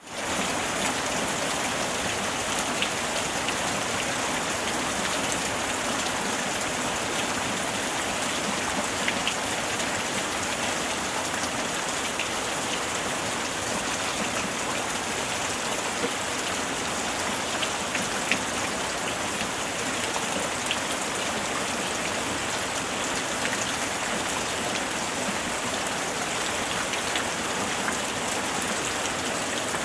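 Steady rain falling on a surface: an even hiss with scattered individual drop ticks, and no thunder.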